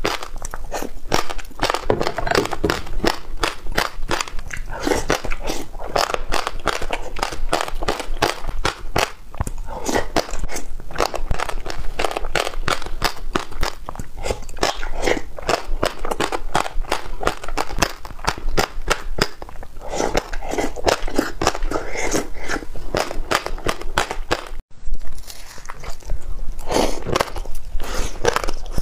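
Close-miked chewing of passionfruit seeds: a fast, continuous run of sharp crunching clicks, several a second, broken briefly about 25 s in.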